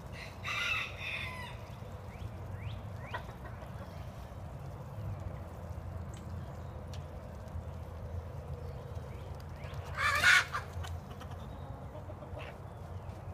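Backyard chicken flock clucking, with a rooster crowing about half a second in and a loud bird call, the loudest sound, about ten seconds in, over a low steady background hum.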